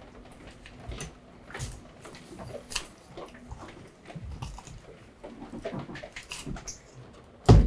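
Wet squelching, tearing and clicking as gloved hands pull the gills and innards out of a raw sturgeon, in short irregular bursts. A single loud knock near the end.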